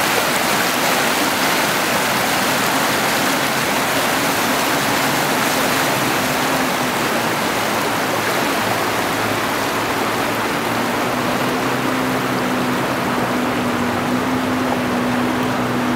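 Fast mountain river rushing over a rocky bed in shallow rapids: a steady, dense rush of water.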